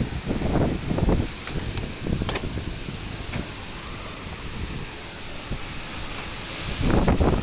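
Storm wind gusting and buffeting the microphone over a steady hiss of heavy rain. The gusts are strongest about a second in and again near the end.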